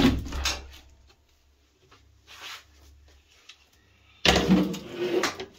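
Knocks and rattling clatter of objects being handled, in three bursts: a loud one at the start, a brief one about two seconds in, and a longer one near the end, over a faint low hum.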